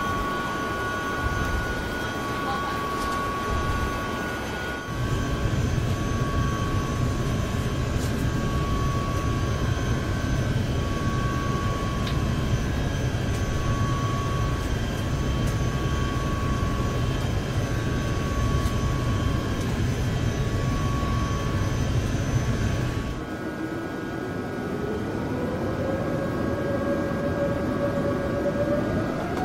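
Airbus A380 jet engines heard from inside the cabin while the airliner taxis: steady engine noise with a high whine, and a deeper rumble for most of it. Near the end the engine whine rises in pitch as the engines speed up.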